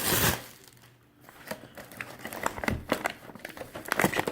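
Packaging of a boxed fireworks assortment crinkling and rustling as it is opened and handled. A loud burst of crinkling comes right at the start, then after a short lull come scattered crinkles and taps.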